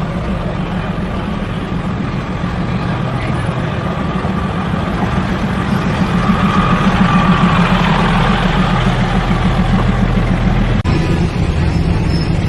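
Diesel train's engine running steadily as the train moves slowly, growing louder about halfway through.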